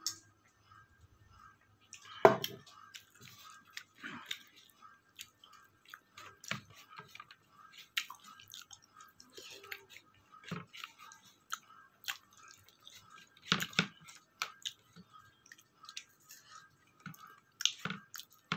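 A person chewing a mouthful of rice, dal and meat, with irregular wet smacks and small clicks. The sharpest click comes about two seconds in.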